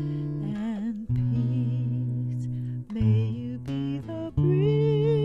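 A woman singing a slow folk ballad over a strummed acoustic guitar, holding notes with vibrato, the guitar chords changing every second or so.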